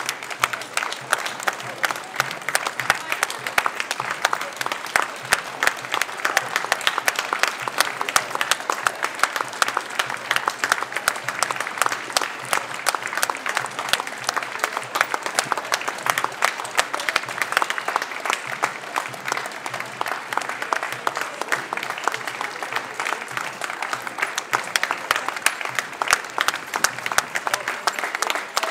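Crowd of spectators applauding continuously, many hands clapping at once in a dense, unbroken patter.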